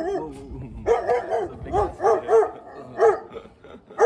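A dog barking repeatedly in quick runs of short barks, two to three a second, with a brief pause near the start.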